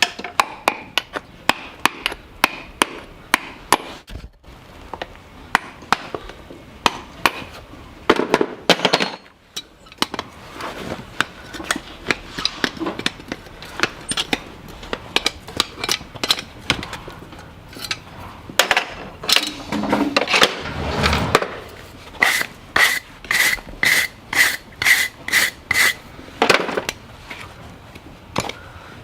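A farrier's hammer striking over and over, about two blows a second, with scraping of hand tools in between. Near the end comes a quick run of about nine hammer blows that ring like struck metal.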